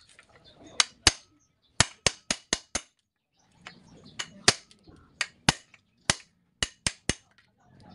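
Hammer striking a cold chisel held on a truck brake shoe, cutting out the old lining rivets: sharp metal-on-metal blows, about fifteen in irregular quick runs, with a pause about three seconds in.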